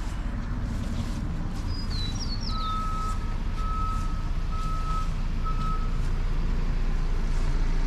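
A vehicle's reverse alarm beeps four times, about one beep a second, over the steady low rumble of a running engine.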